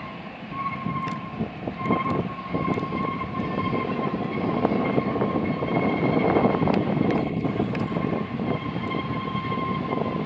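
Freight train cars rolling past on a tight curve, a steady rumble that grows louder over the first couple of seconds. A steady high-pitched squeal rides over it, typical of wheel flanges grinding on the curve.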